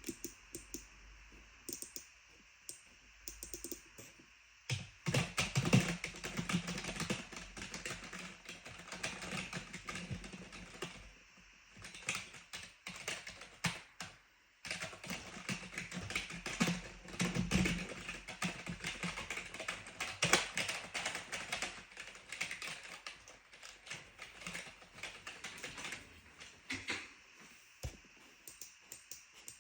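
Clicky keyboard being typed on: a few scattered keystrokes, then fast continuous typing from about five seconds in, thinning back to occasional keystrokes near the end.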